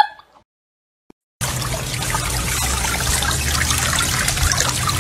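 A second of silence, then a steady trickle of running water starts and continues evenly.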